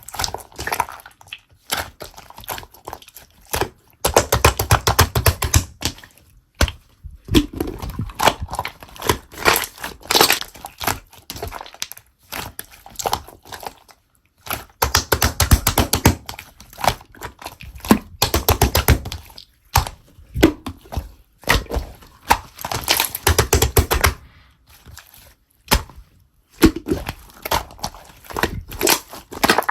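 Slime being squeezed and pressed by hand, making bursts of rapid clicking and crackling with short pauses between.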